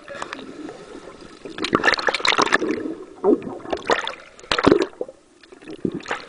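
Pool water splashing and gurgling close to the microphone at the water's surface, in several short bursts, as a seal swims past.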